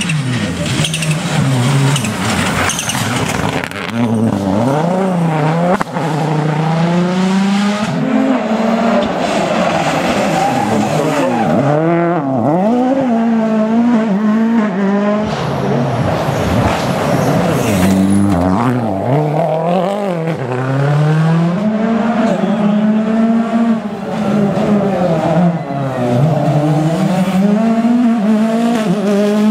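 Rally car engine revving hard, its pitch climbing and dropping back again and again through quick gear changes, with tyres squealing.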